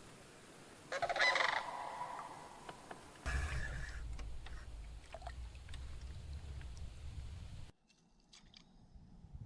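A large bird calling twice: a loud call with a rich, buzzy tone about a second in, and a shorter one about three seconds in. A low rumble runs under the second call and then cuts off abruptly near the end.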